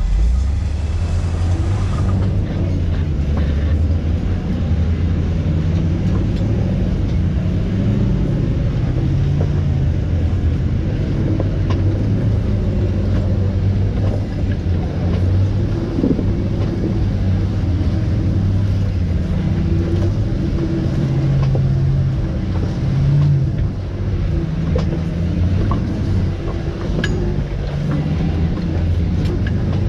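Jeep engine running steadily at low revs while rock crawling, a low engine sound that rises and falls a little in pitch, with a few faint knocks scattered through it.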